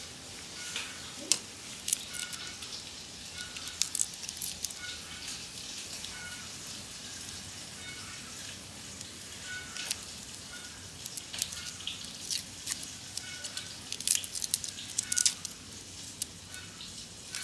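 Dry, papery red-onion skins crackling and rustling as fingers pick and peel them off, in scattered crisp clicks that come thicker near the end. Behind it, a faint short high note repeats a little faster than once a second.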